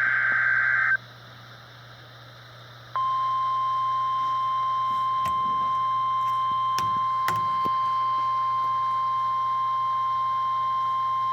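NOAA Weather Radio weekly test signal: a buzzing SAME digital header burst ends about a second in. After two seconds of faint hiss and hum, the steady single-pitch 1050 Hz warning alarm tone starts and holds, with a few faint static clicks.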